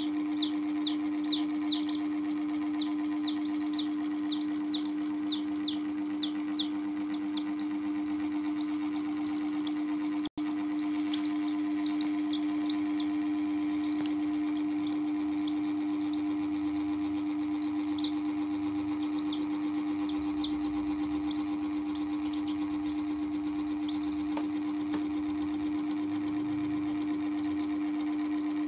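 Baby chicks peeping continuously: quick high chirps that fall in pitch, several a second, over a steady low hum. The sound cuts out for an instant about ten seconds in.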